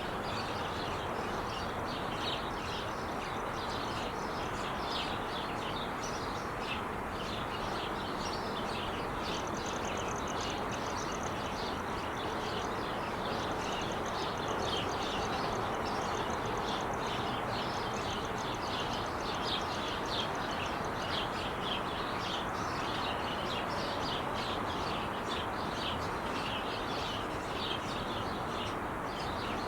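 Steady rush of freeway traffic on the 5 freeway, with small birds chirping over it throughout and a rapid high trill coming and going in the middle.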